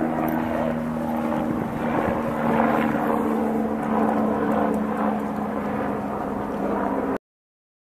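Steady engine drone with several humming tones over a rushing noise, cutting off suddenly near the end.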